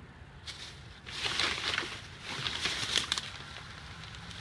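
Rustling and crinkling of bags and packaging as items are handled and pulled out, with a few sharp clicks, for about two seconds from about a second in.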